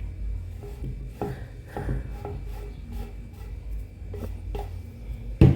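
Kitchen handling sounds: a utensil scraping and tapping irregularly in a dish while dessert layers are spread. One loud knock comes near the end.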